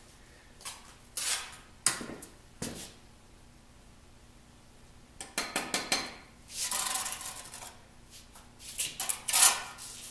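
Bricklaying: a steel trowel scraping and clinking on mortar and brick, with bricks knocking as they are set. It comes in short irregular bursts with a quiet stretch in the middle, loudest near the end.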